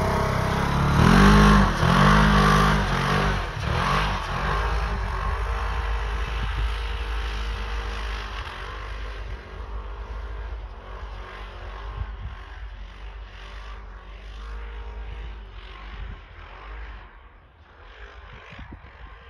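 Polaris Ranger XP 1000 side-by-side's twin-cylinder engine revving hard as it pulls away, the pitch rising and falling through the first few seconds, then its drone fading steadily as it drives off into the distance.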